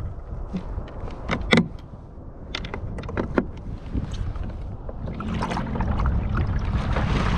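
Water sloshing against a fishing kayak's hull in rough ocean swells, with wind rumble and several sharp knocks. A low steady hum comes in about five seconds in.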